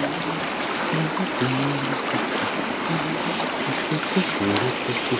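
Steady rush of a river running high after a flood, with background music of short, low held notes over it.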